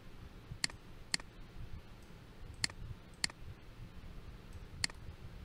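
Computer mouse clicking: five faint, sharp clicks, in two quick pairs and then a single click near the end.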